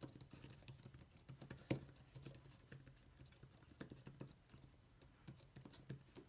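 Typing on a slim iEGrow wireless Bluetooth keyboard: a quick, irregular run of faint key clicks, with one harder keystroke about two seconds in.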